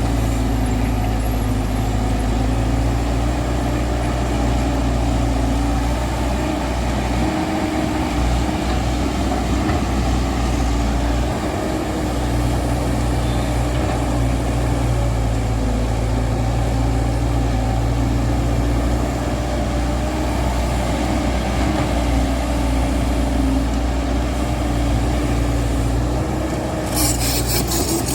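Diesel engine of a JCB JS140 excavator running steadily under work, with a hum that wavers slightly in pitch. A brief high-pitched rattle comes near the end.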